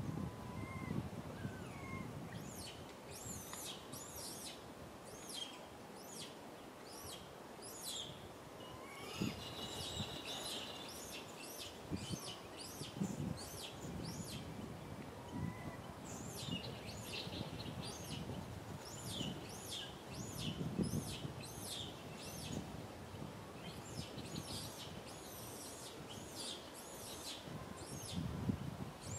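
Wild birds singing and chirping in the trees: many short, quickly falling high calls, one after another, with a brief steady high trill about ten seconds in.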